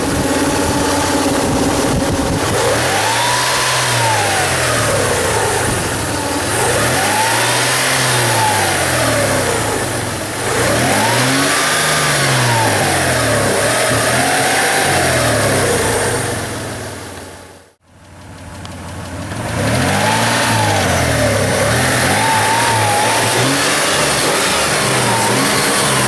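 Mitsubishi Pajero's 3.5-litre DOHC 24-valve V6 running with the bonnet open, revved again and again: the engine note climbs and falls back every couple of seconds, several times over. The sound fades out briefly past the middle and comes back with more revs.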